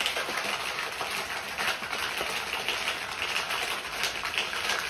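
Stainless-steel cocktail shaker shaken hard, ice rattling inside in a dense, continuous rattle.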